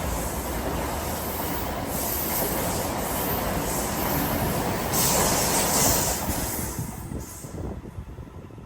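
Loram rail-grinding train passing, its grinding heads working the rails with a harsh hissing grind over a rumble. The grind surges several times, then fades as the train moves away.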